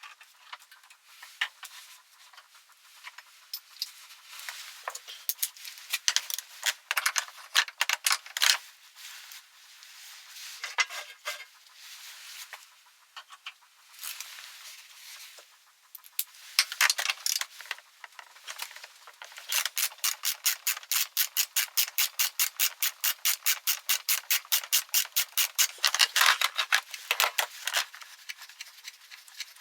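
Hand tools clicking and rattling against metal scooter parts, with scattered sharp clicks, then a fast, even run of clicks, about five a second, from about twenty seconds in until near the end.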